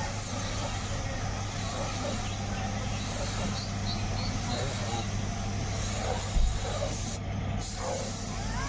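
Compressed-air paint spray gun hissing steadily as paint is sprayed onto a car's front fender, over a steady low hum. A single thump sounds a little past six seconds in, and the hiss cuts out briefly about seven seconds in.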